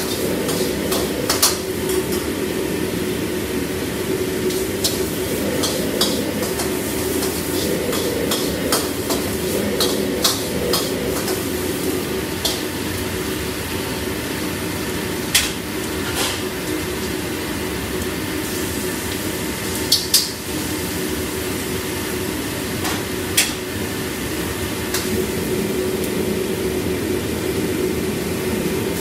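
Stir-frying in a wok: a metal ladle and spatula clatter and scrape against the wok, with scattered sharp clinks and a few louder clanks over a steady roar from the commercial wok range.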